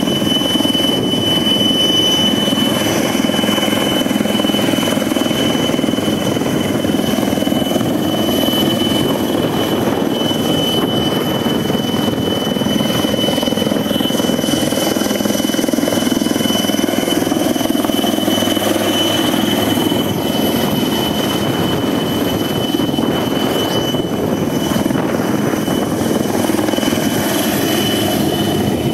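Helicopter hovering low overhead, its rotor and turbine running steadily, with a constant high whine over the noise.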